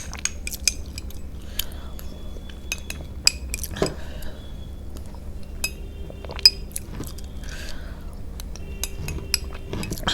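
Cutlery clinking and tapping against dishes: a series of scattered sharp clicks and taps, some with a brief ringing tone.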